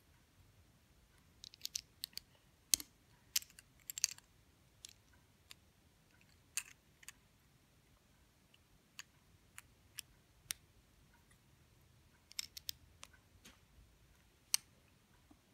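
LEGO bricks clicking and snapping together as they are pressed onto a small model by hand: irregular sharp clicks, in quick clusters about two seconds in and again about twelve seconds in, with single clicks between.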